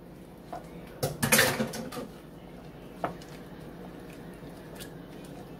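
A spoon stirring chopped broccoli into a thick creamy dressing in a bowl, with a louder scrape against the bowl about a second in and a few light knocks after.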